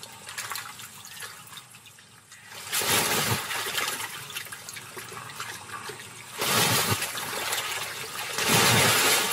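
Caiman thrashing a caught fish in shallow water: splashing in three loud bursts, about three seconds in, six and a half seconds in, and again near the end.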